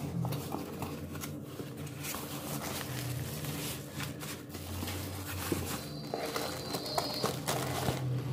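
Packaging being handled: cardboard box flaps and bubble wrap and plastic bags rustling and crinkling, with scattered light clicks and taps, over a steady low hum.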